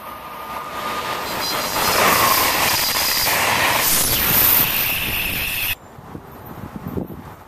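Amtrak Keystone passenger train, an AEM-7AC electric locomotive with Amfleet coaches, passing close at speed: a loud rush of wheels on rail that swells over the first two seconds, with steady high-pitched tones above it. The sound cuts off suddenly near the end, leaving faint wind noise.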